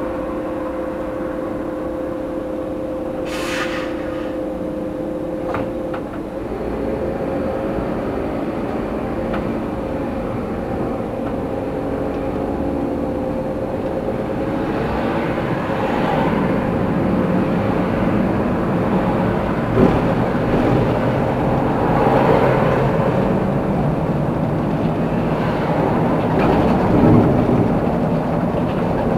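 Tram running on street track. A steady hum while it stands, then from about six seconds in its motors whine upward in pitch as it pulls away. The rumble of wheels on rail grows louder, with occasional knocks over the rails.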